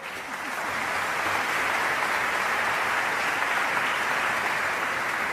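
Audience applauding, the clapping swelling over the first second and then holding steady.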